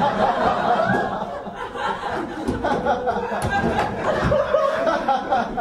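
Audience laughing and chuckling, a steady mass of laughter.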